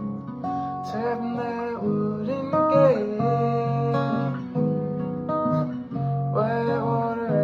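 Acoustic guitar strummed with a voice singing a folk song over it, the sung notes wavering and bending.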